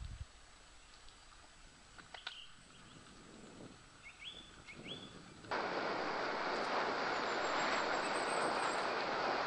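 Quiet woodland with two short rising bird chirps, then about halfway a sudden switch to a loud steady rushing: wind on the camera microphone and mountain bike tyres rolling on a gravel forest track.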